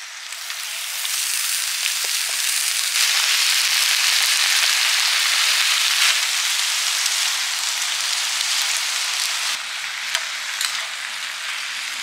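Chopped cabbage, onion and carrot, then sundae (Korean blood sausage), sizzling on a hot camping griddle. The steady frying hiss starts as the vegetables hit the pan, grows louder over the first few seconds, and eases a little near the end.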